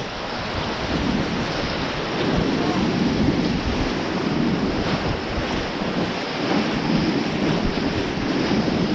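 Whitewater of a Ganges river rapid rushing and splashing around a raft: a steady, unbroken rush of water.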